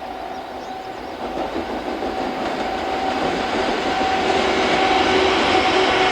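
Freight train hauled by an EF81 electric locomotive, running on the rails and growing steadily louder as it approaches, with a steady high whine over the rail noise.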